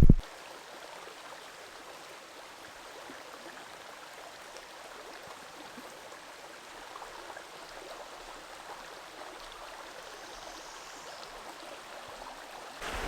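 Steady rushing of a forest stream flowing over rocks, with a brief knock at the very start.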